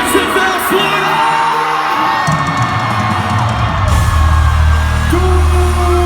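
Loud music over a concert sound system, with held sung notes and yelling over it. The heavy bass drops away about a second in and returns strongly about four seconds in.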